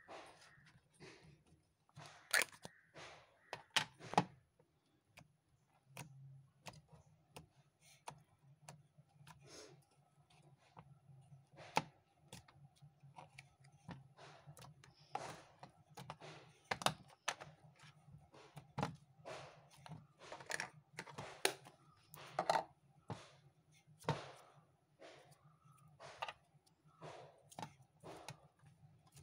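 Pink light clay squeezed and kneaded by hand, making irregular soft clicks, crackles and taps, over a low steady hum.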